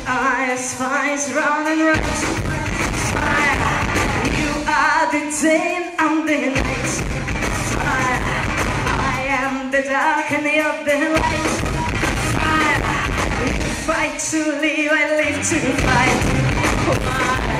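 Live pop-rock band with a female lead singer, amplified and heard from the crowd in a concert hall. Four times the bass and drums drop out beneath the voice, then the full band comes back in.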